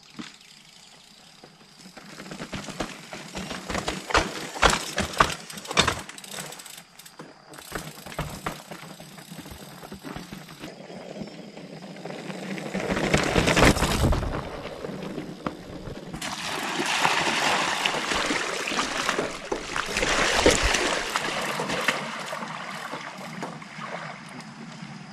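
Mountain bike riding down rough rock steps past the camera. The tyres and frame clatter over the stone, with a series of sharp knocks in the first few seconds, then a loud rushing pass with a deep rumble and a long stretch of hissing tyre and wind noise.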